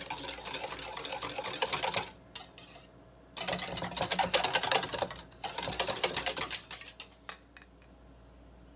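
Wire whisk beating a liquid mixture in a stainless steel bowl: rapid clicking of the wires against the metal. It stops about two seconds in, starts again about a second and a half later, and stops for good about seven seconds in.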